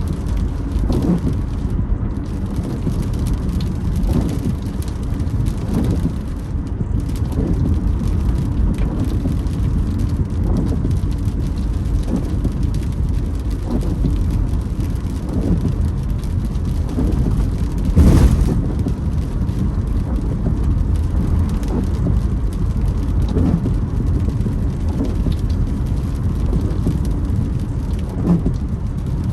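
Car driving in rain, a steady low rumble of road and rain noise, with the windscreen wipers creaking across the glass at a steady beat. One brief, louder noise comes about eighteen seconds in.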